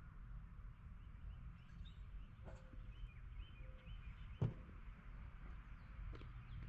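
Faint outdoor ambience with a low rumble of wind on the microphone and a few faint bird chirps. A single short knock about four and a half seconds in.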